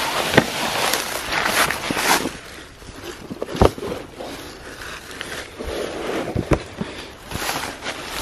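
Plastic deer drag sled with a deer on it scraping and swishing over grass and brush as it is pulled, with footsteps and a few sharp knocks along the way.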